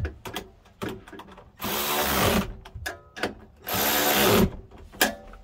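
Power drill running in two short bursts about a second apart, with clicks and knocks of handling around them.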